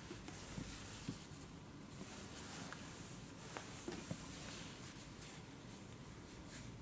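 Gathered fabric being handled and rustled by hand, with a few soft clicks.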